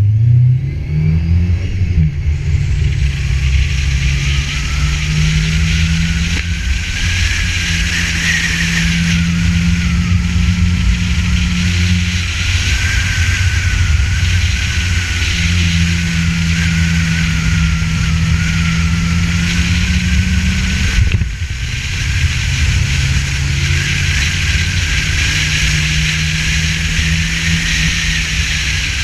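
Ford Festiva's four-cylinder engine driven hard, its pitch rising and falling as the car works around a course, with a high whine moving along with it and a steady hiss over the top. About two-thirds through it briefly drops off, like a lift off the throttle, then picks straight back up.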